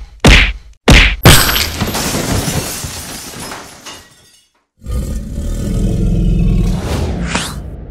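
Cartoon sound effects: two heavy blows, then a crash of a stone door shattering, with rubble clattering and crumbling away for about three seconds. After a short gap comes a loud dinosaur roar lasting about three seconds.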